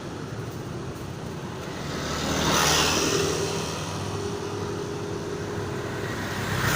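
Road traffic: a steady engine rumble, with a vehicle passing close by about two to three seconds in, rising and fading, and another starting to pass near the end.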